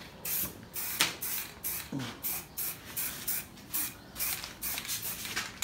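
Aerosol spray-paint can hissing in short, quick bursts, roughly two a second.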